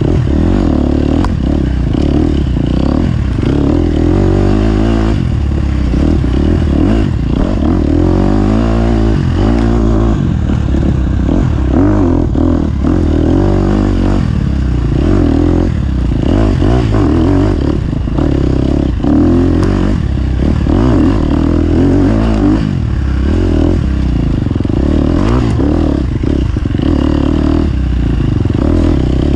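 Off-road racing engine running hard, revving up and down again and again, with the rattle of the machine over rough ground.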